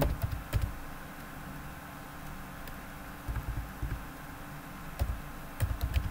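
Scattered keystrokes on a computer keyboard as a command is typed: a few clicks at the start, a pause, then several more soft keypresses near the end.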